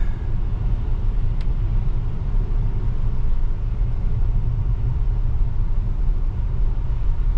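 Steady low road rumble and tyre noise from a Tesla electric car cruising on wet pavement, heard inside the cabin.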